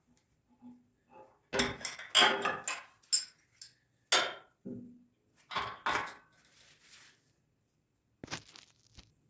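Hand tools and metal parts being handled while working on a small gasoline generator: irregular clinks and knocks, a quick cluster about one and a half to three seconds in, then a few more scattered ones. The engine is not running.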